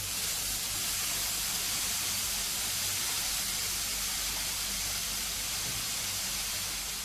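Chopped onions, ginger, garlic, green chillies and curry leaves sizzling after being tipped into hot sunflower oil in a pan: a loud, steady hiss that eases slightly near the end.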